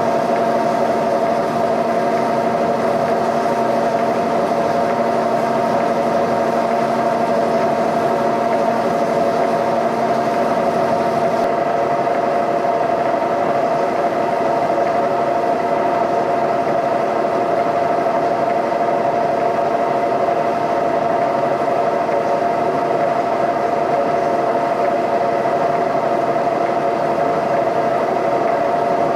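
Line-boring machine running steadily under cut, its boring bar truing worn, egg-shaped holes; a strong, constant whine sits over a machine hum. About a third of the way in, a lower tone drops out and the hiss softens.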